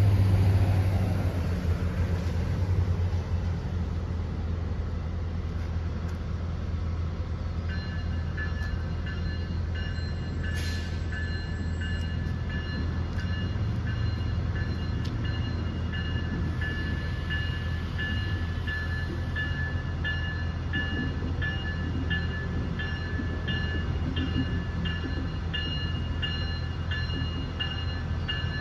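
Diesel locomotive engine running with a steady low rumble. About eight seconds in, a bell starts ringing in even, repeated strikes, and a short hiss comes a couple of seconds later.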